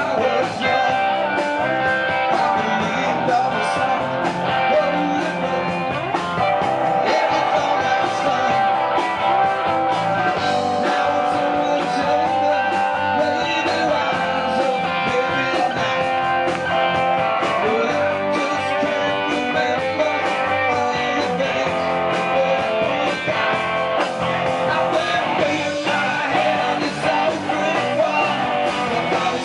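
Live rock-and-roll band playing: electric guitars and bass guitar with a man singing into a microphone.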